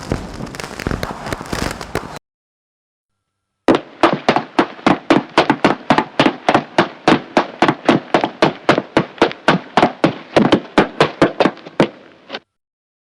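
A noisy, crackling blast that cuts off about two seconds in. After a short gap comes a long run of sharp, evenly spaced pops, about five a second, lasting until near the end.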